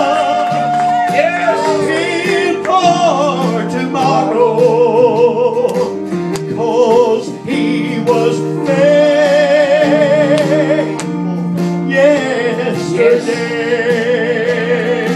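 Men singing a gospel song into microphones with keyboard accompaniment, holding long notes with a wide vibrato over sustained chords.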